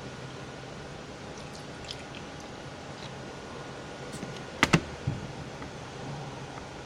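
Homemade glue-and-detergent slime being squished and kneaded by hand, with faint sticky ticks, then two sharp snaps close together about two-thirds of the way through and a smaller one just after.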